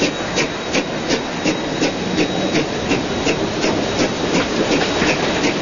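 Queensland Rail BB18¼ class steam locomotive 1079 working upgrade, its exhaust beating evenly at nearly three chuffs a second, heard from the carriages behind it over the steady rumble of the train's wheels.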